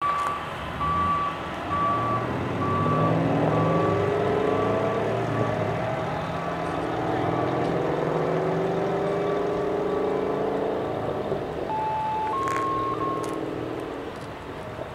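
A vehicle's reversing alarm beeping steadily at one pitch, about two beeps a second, fading out about halfway through. Under it a heavy engine runs and rises in pitch twice as the vehicle moves. Near the end come two short electronic tones, the second a little higher.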